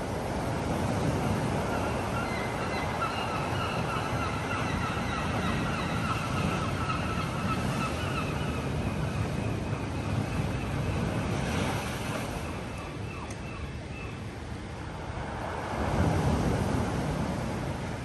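Surf breaking and sea water washing up over a slipway, a steady rushing wash that swells again with a bigger surge near the end. Over it, for several seconds in the first half, seagulls call repeatedly.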